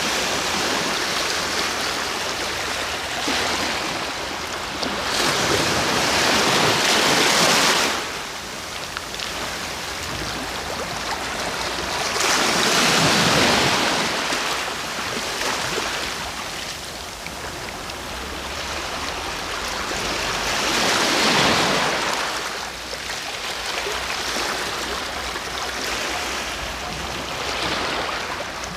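Ocean waves breaking and washing on the shore, the surf swelling into louder breakers about every seven to eight seconds, three times, between quieter stretches of rushing water.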